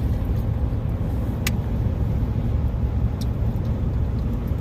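Steady low rumble of a car driving, with a few faint light clicks.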